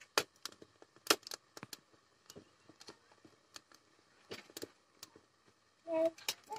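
Sparse, irregular sharp crackles and pops from a wood fire in a clay chulha and the covered iron kadai of potatoes and kundri frying on it. A short voice-like sound comes near the end.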